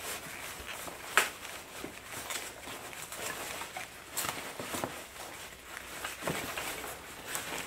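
Packing peanuts rustling and a cardboard box creaking as a hand digs through the box, with a few sharp clicks, the loudest about a second in.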